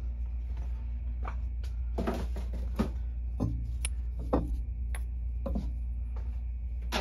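Refractory kiln posts and a kiln shelf being lifted out and set down: a string of short knocks and clinks over a steady low hum.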